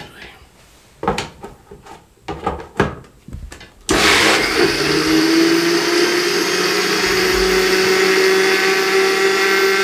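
Countertop electric blender: a few knocks as the lidded jug is handled and set on its base, then about four seconds in the motor starts abruptly and runs steadily, grinding whole grapes with water into juice, its pitch rising slightly as it runs.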